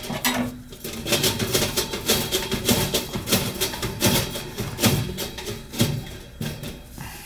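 A loose furnace blower wheel, broken free of its hub, knocking and scraping against its housing as it is moved by hand in a run of irregular clunks. It is a sign of a failed blower wheel attachment, the cause of the furnace's loud racket.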